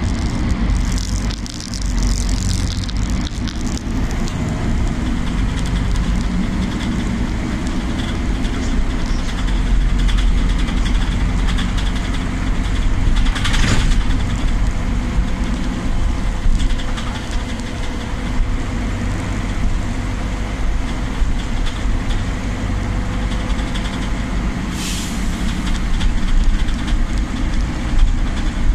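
Inside a Solaris Urbino 12 city bus: steady engine and road rumble, with short hisses of compressed air about a second in, again around the middle, and near the end.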